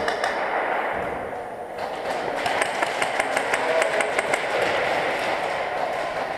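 Indoor airsoft gunfight: rapid, irregular sharp clicks and pings of airsoft guns firing and BBs striking walls and barriers, growing denser about two seconds in, over a steady background hiss.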